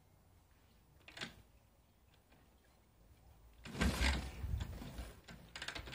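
1966 Harley-Davidson Panhead V-twin being kick-started: a light click about a second in, then a hard kick a little past halfway turns the engine over with a deep mechanical clatter that fades without the engine catching. A few light clicks follow near the end.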